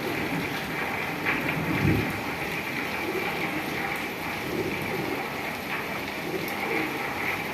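Steady rain falling, with a brief louder low thud about two seconds in.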